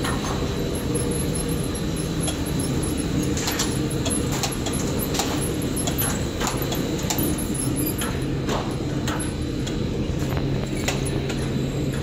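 Running rubber-hose production line machinery: a steady drone with low, even tones, dotted with irregular light clicks and ticks.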